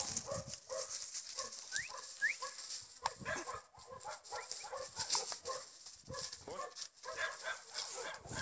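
Dog barking repeatedly, with a couple of short rising chirps about two seconds in.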